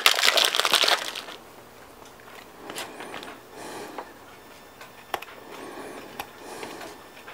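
Plastic cheese wrapper crinkling loudly for about a second, then a block of Monterey Jack cheese being grated on a handheld flat stainless-steel grater: soft, repeated scraping strokes with a few light clicks of the grater.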